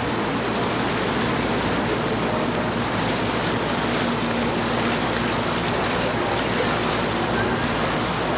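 Steady rushing wash of wind and water, with a faint low hum underneath.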